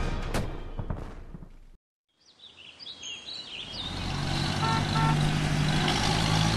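A song's last notes die away into a brief silence, then cartoon sound effects: birds chirping, followed by a bus engine running steadily with two short beeps about five seconds in.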